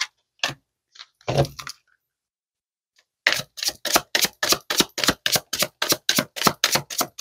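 A tarot deck being shuffled by hand. A few scattered card clicks and a soft thump give way, about three seconds in, to a quick, even run of card slaps at about five a second.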